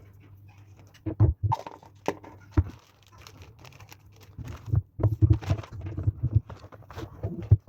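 Irregular knocks and clatters of objects being handled and set down on a hard surface, busiest in the second half.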